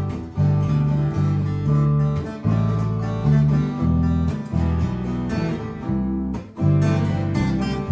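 Several acoustic guitars strumming chords together in a rhythmic, country-style groove, with a bass guitar playing a moving line of low notes underneath. Instrumental, with no singing.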